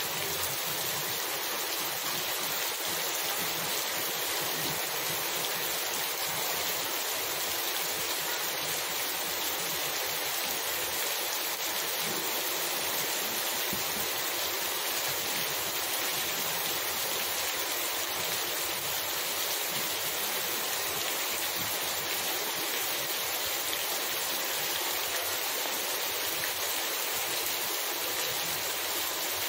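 Heavy rain pouring onto a paved street and tiled roofs: a dense, steady hiss of drops splashing on wet asphalt.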